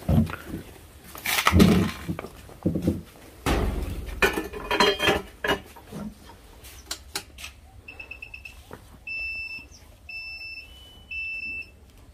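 Digital platform weighing scale beeping: about five short electronic beeps in the last four seconds, one of them a little higher and longer. Before that, knocks and shuffling as the goat is stood on the scale platform.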